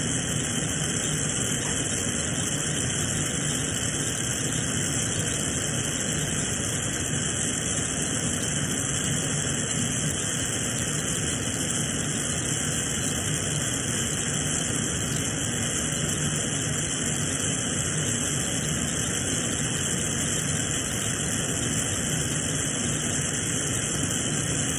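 Glassblowing bench torch burning with a steady, even rushing hiss from its flame.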